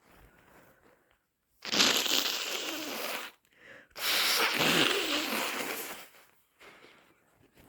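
Two long, forceful nose blows into a tissue, each lasting about two seconds, the second following shortly after the first: a congested nose being cleared during a cold. Faint sniffing and tissue rustling come before and after them.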